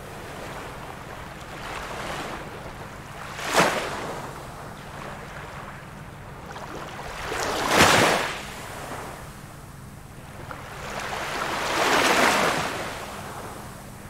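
Small ocean waves breaking on a beach, with a steady wash of surf between them. A sharp wave crashes about three and a half seconds in, the loudest comes near the eight-second mark, and a slower, broader swell builds and fades around twelve seconds.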